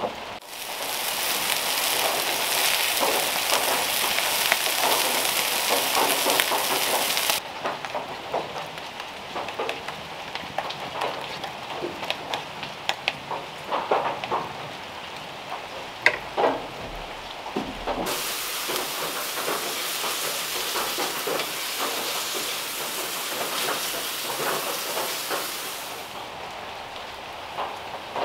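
Food sizzling on a griddle over a wood fire, a steady hiss that starts and stops abruptly twice, between stretches of clinks, taps and scrapes of cooking utensils and stirring in a bowl.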